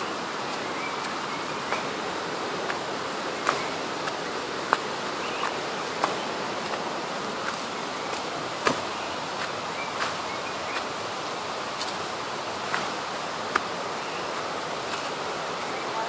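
Steady hiss of forest background, with sharp irregular clicks and snaps at about walking pace: footsteps on dry leaf litter and twigs.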